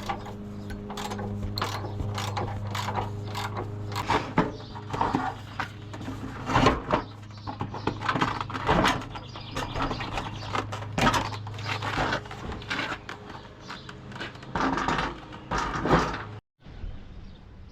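Irregular metallic clicks, rattles and clanks of tools and hardware being worked, over a steady low hum that stops about 16 seconds in.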